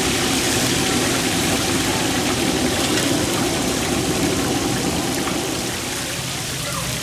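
Chapli kababs frying in a large shallow pan of hot oil: a steady, dense sizzle of bubbling oil, easing slightly near the end.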